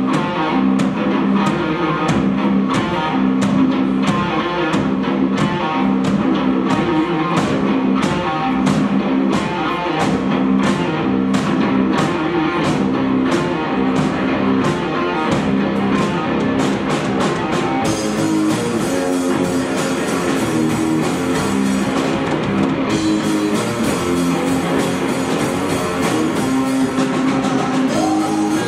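Live rock band playing: a distorted guitar riff over a drum kit keeping a steady beat with regular cymbal strokes. About two-thirds of the way through, the cymbals open into a continuous wash.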